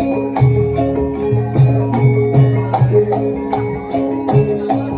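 Javanese gamelan music: bronze metallophones struck in a steady rhythm, their tones ringing on, with regular drum and percussion strokes.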